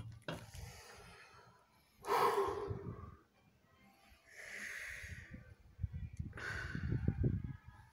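A person breathing noisily through a paper face mask close to the microphone: three breaths, the loudest about two seconds in. Low rumbling handling noise comes from the phone in between.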